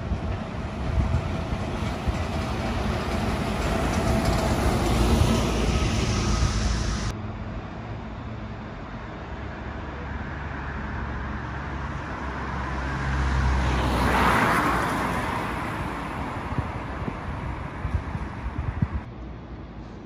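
Road traffic on a wet city street: a double-decker bus approaches and passes, swelling and fading, and later a second vehicle swells up and fades away.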